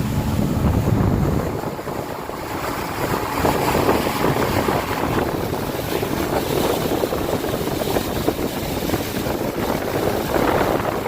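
Water rushing past a small boat's hull while under way, with wind buffeting the microphone. A low motor hum fades out in the first two seconds.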